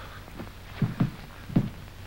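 Three dull, low thumps of a scuffle on a carpeted floor, the second following close on the first and the third about half a second later, over a faint steady hum.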